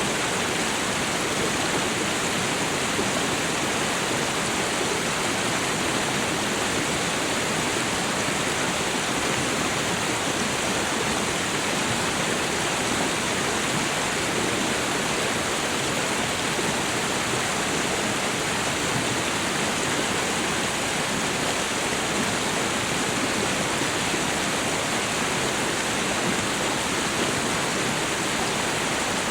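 Waterfall: falling water rushing in a steady, even hiss with no breaks or changes.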